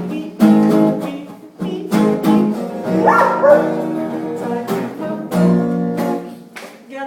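Guitar strummed in steady chords, with a dog joining in with a wavering call about three seconds in.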